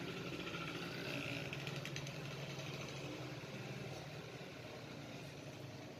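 An engine running steadily, faint, with a few light metallic clicks about two seconds in.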